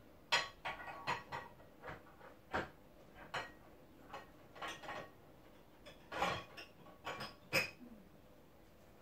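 Dishes and kitchen utensils being handled at a counter: a string of irregular clinks and knocks, some ringing briefly, with the loudest ones about a third of a second in and near the end.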